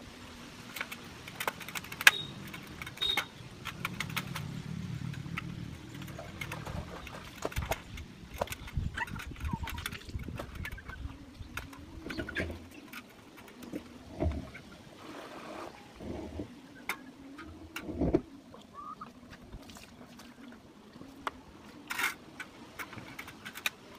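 Knife clicking and scraping against a steel plate while something is cut on it, in irregular sharp clicks.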